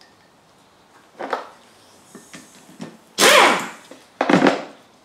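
Metal clicks and knocks from handling a Subaru cylinder head's rocker arm assembly, followed by two louder scraping clatters about three and four seconds in.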